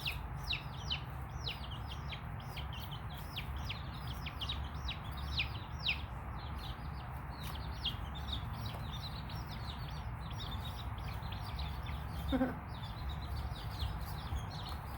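Baby chicks peeping continuously: many short, high, falling peeps overlapping several times a second, a little sparser in the second half. A steady low hum lies underneath.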